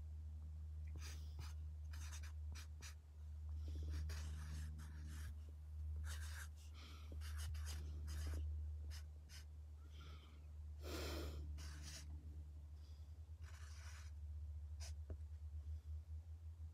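Sheet of paper rustling and scratching as it is held and moved by hand, in short irregular bursts, over a low steady hum.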